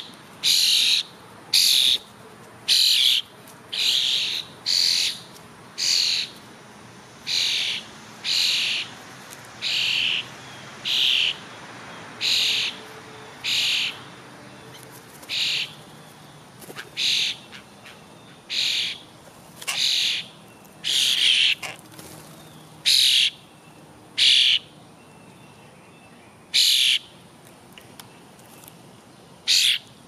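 A bird giving a short harsh call over and over, about once a second, the calls spacing out toward the end.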